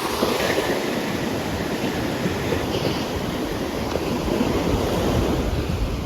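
Sea waves washing on the shore in a steady wash, with wind rumbling on the microphone.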